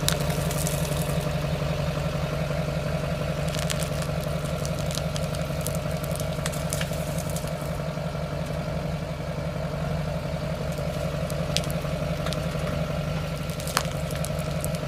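Pickup truck engine idling steadily while the tyre rolls slowly through thick mouse trap glue, with scattered crackling clicks as the glue stretches into strings and tears off the asphalt.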